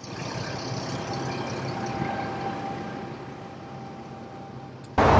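Distant city traffic as a steady hum with a faint steady tone, slowly getting quieter, then cutting abruptly near the end to much louder, closer street noise.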